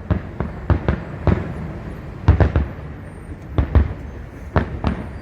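Fireworks display: about a dozen sharp shell bursts at irregular intervals, some coming in quick pairs.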